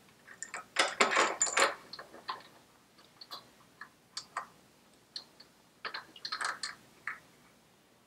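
Light metallic clicks and clinks of mounting bolts being handled and started by hand into a Harley-Davidson banana front brake caliper, in irregular bursts, busiest about a second in and again around six seconds in.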